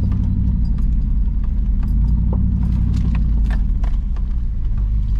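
Truck engine running steadily at low speed, heard from inside the cab, with scattered sharp clicks and knocks from the tyres rolling over a rocky dirt track.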